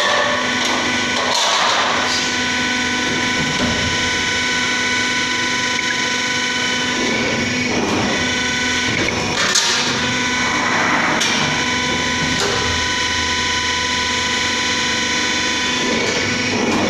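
CNC sheet-metal bending machine running with a steady hum of several held tones, with a few sharp metallic knocks as it forms steel sheet into a door frame.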